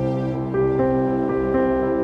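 Slow, gentle instrumental background music: held keyboard notes in soft chords, a new note entering every half second or so.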